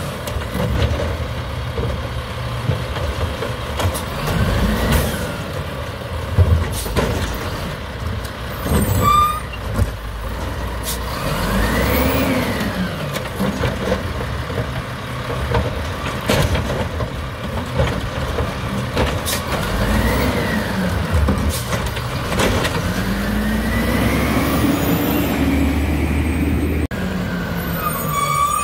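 Diesel engine of a WhiteGMC Amrep Octo automated side loader garbage truck running, revving up and back down several times as the hydraulic arm lifts and dumps recycling carts, with scattered clunks of the carts and arm. The sound changes abruptly near the end.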